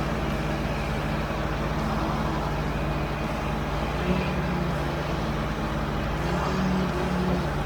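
Heavy diesel equipment engine running steadily, its note swelling briefly a couple of times as it is worked.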